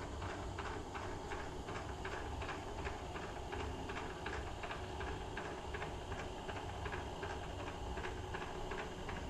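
Lagun milling machine's table traversing along the Y axis under power feed: a steady low machine hum with a regular tick about three times a second.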